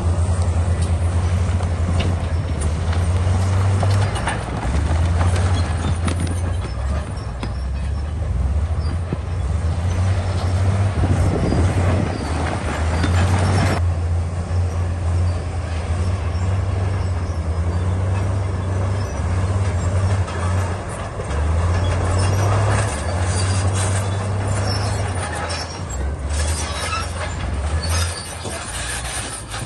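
Komatsu D68E bulldozer working: its diesel engine runs steadily with a deep drone that rises and falls as it takes load, over metallic clanking from its steel tracks and the rock. The knocks grow thicker near the end.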